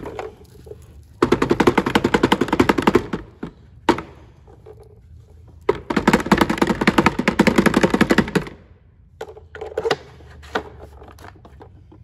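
Pleated cartridge filter of a Milwaukee 2-gallon wet/dry vac being shaken and banged against the inside of its plastic collection tank, in two bursts of rapid rattling knocks of about two and three seconds, with a few single knocks between and after. This knocks caked sand and dust out of the clogged filter.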